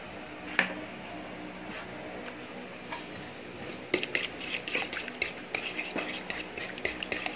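Metal spoon stirring a liquid marinade in a stainless steel bowl: a single clink about half a second in, then quick, irregular clinking and scraping against the bowl's sides over the last three seconds.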